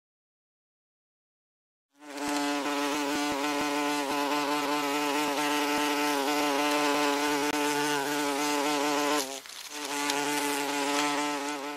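Wasp wings buzzing in flight: a steady, even-pitched buzz that starts about two seconds in, breaks off for a moment near the end, then resumes.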